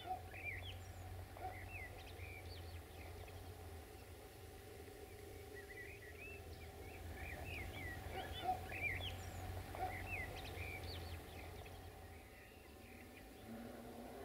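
Small birds chirping in quick clusters of short, rising and falling calls, busiest near the start and again through the middle. Under them runs a steady low hum that fades out near the end.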